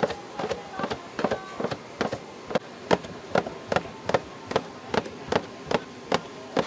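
A metal cutting blade chopping down through a soft, starch-dusted jelly cake and knocking the stainless steel tray beneath. The knocks are sharp, steady and even, about two and a half a second.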